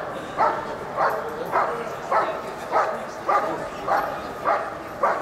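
German shepherd barking steadily at a helper hidden in a blind, about nine sharp barks at an even pace of nearly two a second: the Schutzhund bark-and-hold, where the dog holds the helper in place by barking.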